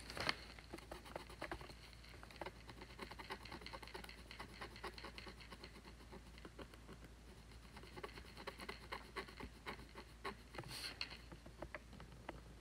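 Scratch-art tool scraping the black coating off scratch paper in quick short strokes, a faint, busy run of scratches and ticks. It grows busier near the end.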